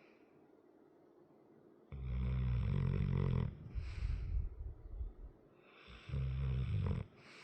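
Large dog snoring in its sleep: two low snores, about two seconds in and about six seconds in, each followed by a breathy exhale.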